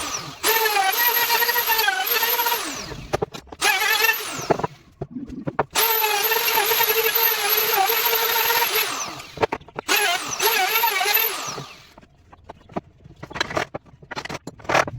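A handheld electric power tool runs in three long bursts, its whine wavering in pitch as it works the wood. Each burst ends in a falling spin-down. Sharp knocks and clicks fall between the bursts and through the quieter last few seconds.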